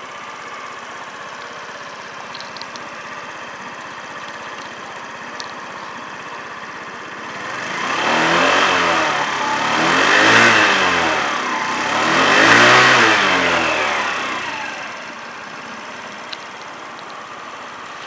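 Honda Giorno AF70 scooter's 50cc four-stroke single idling steadily. About eight seconds in, the throttle is blipped three times in quick succession, each rev rising and falling back before it returns to idle. The seller describes the engine as in good condition.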